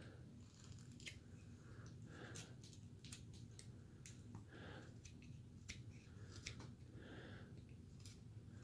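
Faint, irregular clicks and snicks of a carving knife and V-tool shaving small chips from basswood.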